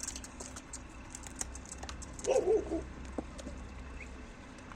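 Dogs eating dry food: light, irregular crunching clicks, with a brief voiced whine-like sound about two seconds in.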